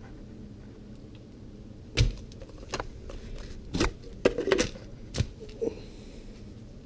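Hard plastic pitcher and its lid being handled on a workbench: a string of sharp knocks and clicks, the loudest about two seconds in and a quick clatter around four and a half seconds.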